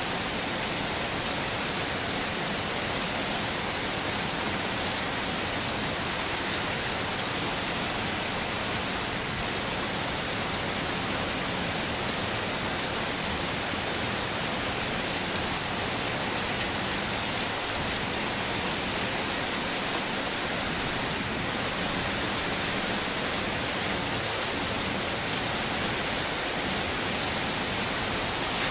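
Heavy rain falling steadily as an even, unbroken hiss, briefly dipping twice in its upper range.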